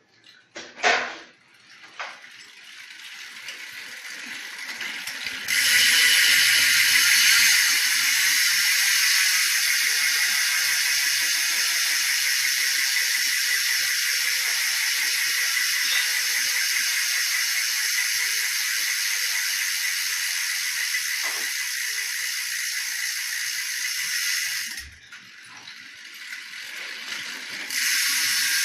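BMX rear cassette hub freewheeling: the pawls in the hub ratchet into a loud, steady, high buzz as the wheel spins free. A sharp click comes about a second in, the buzz builds over a few seconds and then holds, drops away for a couple of seconds near the end and starts again.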